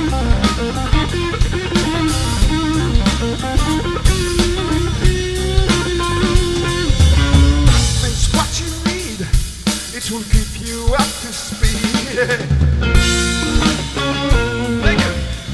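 Blues-rock instrumental passage: an electric guitar plays lead lines with string bends over a rock drum kit.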